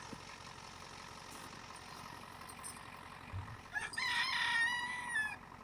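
A rooster crowing once, about 1.5 s long near the end, breaking into a held steady note.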